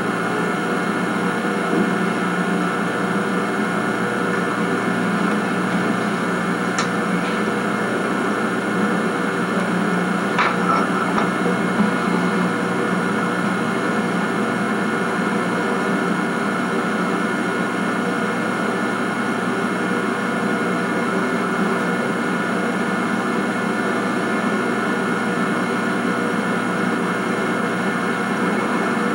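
Steady electrical hiss and hum with no speech, with two faint clicks about seven and ten seconds in.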